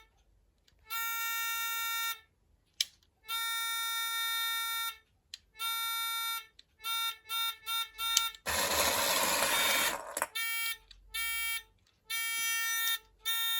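LEGO toy train electronic horn sounds played in turn: a reedy horn tone of one steady pitch, sounded in long blasts of one to one and a half seconds and in groups of quick short toots. About halfway through comes a hissing burst lasting nearly two seconds, and there is a single click a few seconds in.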